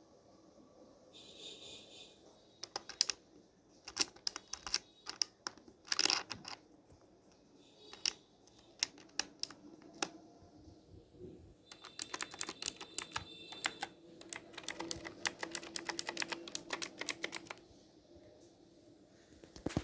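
Clicky blue switches of a Mumre Wrangler K100 mechanical keyboard being typed on: scattered single keystrokes and short runs at first, then fast, continuous typing for about five seconds after the middle.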